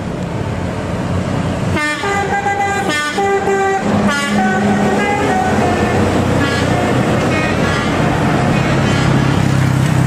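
Bus "telolet" multi-tone horn playing a short tune of several notes, starting about two seconds in, then a run of falling notes that fades, over the steady diesel engine of the passing bus and other traffic. The engine grows louder near the end.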